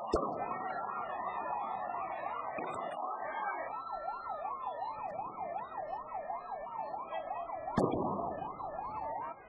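Several police van sirens sounding at once, slow rising and falling wails overlapping, with a fast yelp cycling about twice a second in the second half. Two sharp bangs cut through, one right at the start and a louder one near the end.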